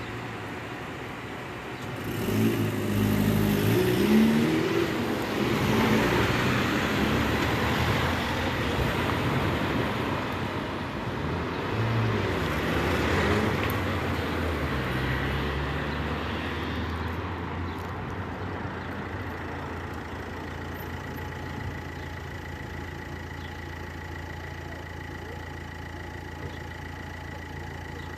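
Road traffic at a pedestrian crossing at traffic lights: vehicles drive past loudly for the first half, then it settles to a steadier, quieter engine hum from about eighteen seconds in. The crossing's audible beeper, which is not working, is not heard.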